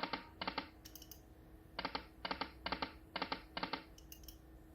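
Slot machine game sound effects: short clicking rattles as the reels stop. Two come near the start, then five follow one after another, about half a second apart.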